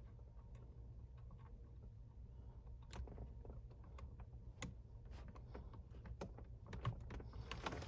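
Scattered faint plastic clicks and rattles of wiring connectors being handled and plugged into a car's CD changer module, the sharpest clicks about three and four and a half seconds in, over a low steady hum.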